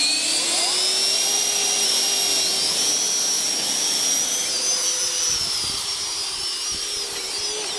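Electric ducted fans and wing lift fans of a VTOL RC jet prototype whining at high power as the model lifts off into a low hover. Several high-pitched tones rise in pitch at first, then hold steady with small shifts.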